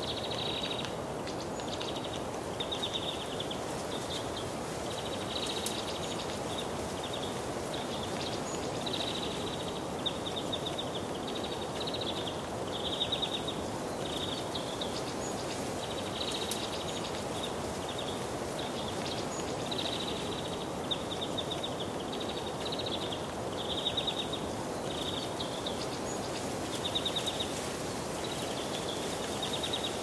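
Short, high trilled calls repeated roughly once a second over a steady outdoor background hiss.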